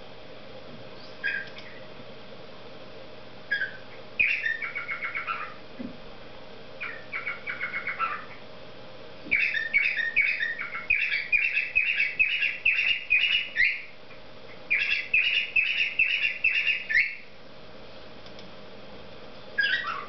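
Cockatiel singing: a few single chirps, then short runs of rapid chirping, then two long warbling phrases of quick repeated notes through the middle and second half, and one more call at the very end.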